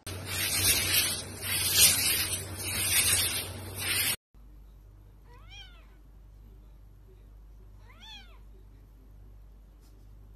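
A loud, rough rushing noise for about four seconds, which stops abruptly. Then a ginger tabby cat meows twice, about two and a half seconds apart, each meow rising and then falling in pitch.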